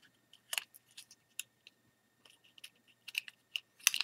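Scattered small plastic clicks and scrapes of a flathead screwdriver prying at a Logitech C920 webcam's plastic housing as its circuit board is rocked loose, with a quick run of louder clicks near the end as the board comes free.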